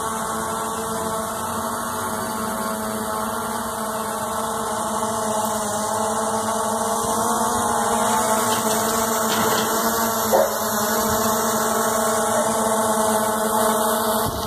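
SJRC F11 Pro quadcopter's four brushless motors and propellers buzzing steadily in flight as the drone hovers. The buzz is a many-toned whine that grows louder about halfway through as the drone comes closer, with one brief tick a little past the middle.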